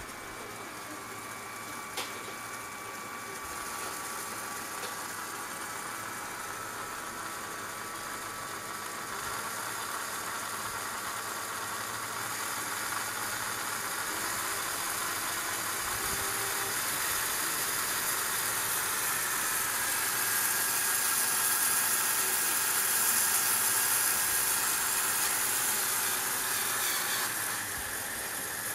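LEGO Power Functions 8882 XL and 8883 M motors running together off an 8884 IR receiver, a steady whir that grows louder through most of the stretch. Near the end it drops back as the current climbs to about 600 mA, the load the M motor draws when stalled. There is one sharp click about two seconds in.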